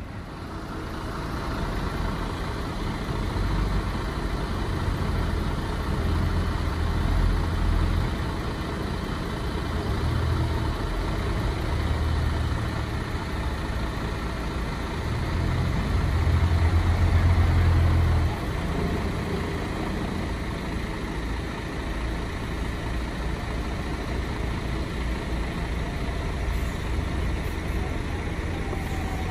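City bus engines, among them an articulated Mercedes-Benz Citaro, running as the buses manoeuvre: a low engine rumble that swells to its loudest shortly before the middle, then drops back abruptly about 18 seconds in and settles to a steadier idle.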